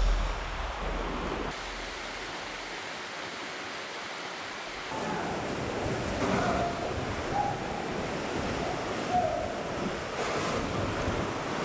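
Steady rushing of a waterfall, with wind buffeting the microphone. The rushing grows louder and fuller about five seconds in.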